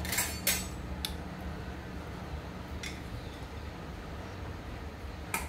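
A few light clinks and clicks of a spoon against seasoning jars and containers, a cluster right at the start and single ones spread through, over a steady low hum.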